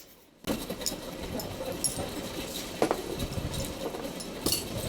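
Bearing puller being worked on a ceiling fan's lower ball bearing: scattered metal clicks and scraping over a steady background of shop noise, starting abruptly about half a second in.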